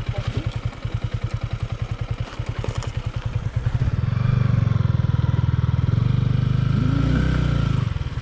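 Single-cylinder motorcycle engine running at low revs with an even pulse, then opened up about four seconds in and held under load as the bike is pushed up over rocks, easing off just before the end.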